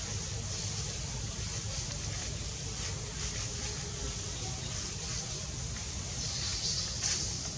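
Steady outdoor hiss over a low rumble, the hiss growing brighter for a moment near the end.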